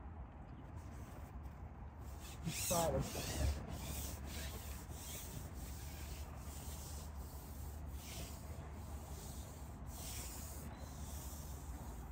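Wind rumbling on the microphone, with a rubbing rustle that repeats about twice a second. One louder squeaky scrape comes about three seconds in.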